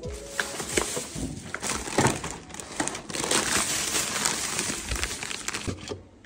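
Thin plastic grocery bags crinkling and rustling as they are handled, stopping shortly before the end.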